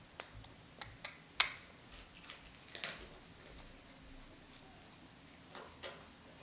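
Small screwdriver working the screws of a linear guide carriage's end plate: faint, irregular small clicks and ticks of the tip and screw, with one sharper click about a second and a half in.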